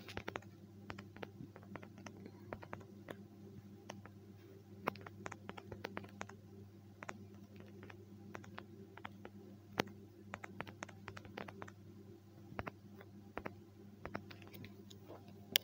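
Typing on a smartphone's touchscreen keyboard: an irregular run of light taps, a few a second, over a steady low hum.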